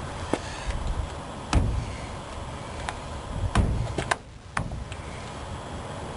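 Chrome trim molding on a car's vinyl top being pressed and snapped onto its retaining clips: about six sharp clicks and knocks at irregular intervals over a steady low background rumble.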